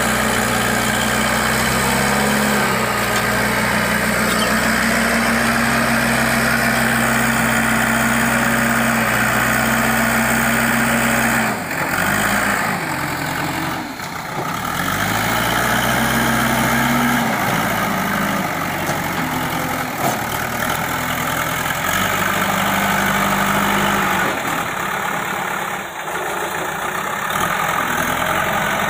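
JCB backhoe loader's diesel engine running while it digs and loads mud with its front bucket. The engine note holds steady for the first eleven seconds or so, then drops and picks up again several times as the machine works.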